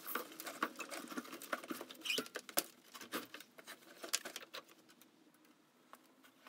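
Irregular light clicks, taps and rustles of cables being handled and a power lead being plugged into a wall outlet, thinning out after about four and a half seconds.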